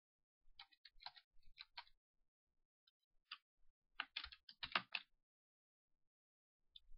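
Computer keyboard typing: two short runs of faint key clicks, the first about half a second in and a louder one around four seconds in.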